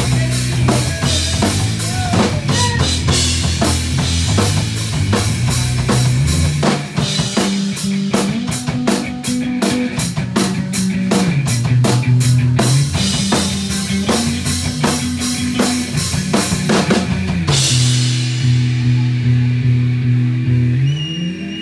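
Live punk rock band playing: drum kit pounding under electric guitar and a bass guitar line that steps between notes. About seventeen seconds in the drums stop and the held guitar and bass notes are left ringing over a fading cymbal wash, as the song closes.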